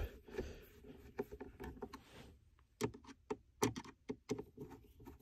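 Phillips screwdriver tightening the screws of a center console lid hinge: quiet, irregular clicks and ticks as the tip turns in the screw heads.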